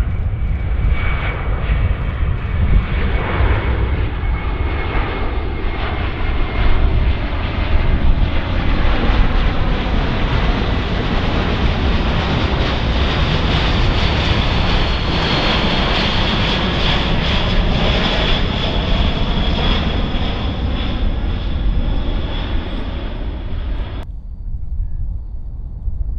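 Four-engine military jet transport flying low overhead: a steady jet roar with a high turbine whine that builds as it passes. Near the end the roar cuts off abruptly, leaving only a low rumble.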